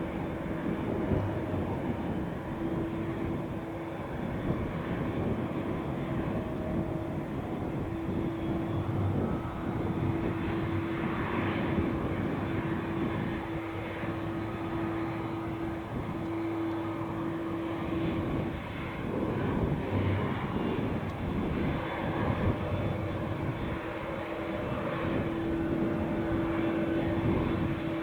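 Airplane engine noise: a continuous drone with a steady hum-like tone running through it.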